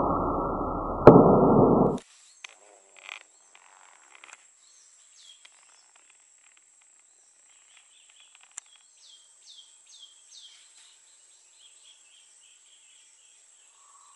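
A loud, muffled booming shot sound dying away, with a second bang about a second in, both cut off abruptly about two seconds in. Then faint forest ambience follows: a steady high insect hiss and a quick series of short falling bird calls.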